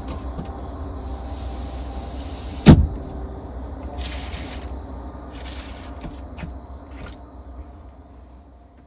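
Someone moving about on a camper bed: a heavy thump about three seconds in, then two short bursts of fabric rustling as a window curtain is handled, and a few light clicks. All of it sits over a steady low hum and fades out near the end.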